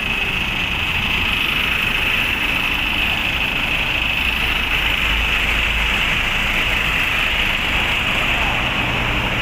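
A bus engine running nearby amid steady road traffic noise, with a steady high hiss over it and the low rumble swelling a little about halfway through.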